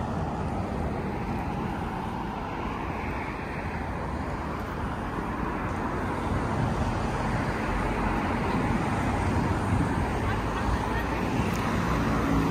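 Road traffic going past on the street beside the pavement, a steady wash of tyre and engine noise that grows louder in the second half.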